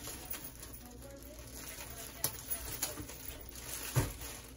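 Plastic bag of frozen greens crinkling as it is handled, with a few sharp knocks, the loudest about four seconds in.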